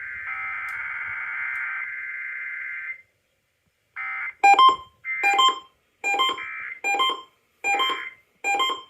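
Emergency Alert System broadcast tones: a loud, harsh, steady electronic data screech for about three seconds. After a second of silence comes a run of short electronic beeps, roughly one every three-quarters of a second.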